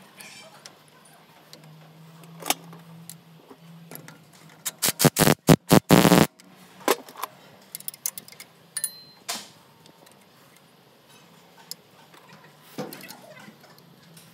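Metal hand tools clinking and knocking against a diesel truck engine's alternator and belt-tensioner brackets, with a quick run of about nine loud knocks around five seconds in.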